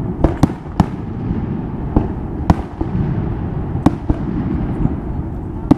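Aerial fireworks going off: about seven sharp bangs at uneven intervals, over a steady low rumble.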